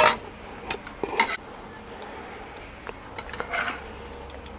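A steel ladle clinking and scraping against a metal kadhai while curry is scooped out for serving: a few short clanks, the loudest right at the start, and a brief scrape later on.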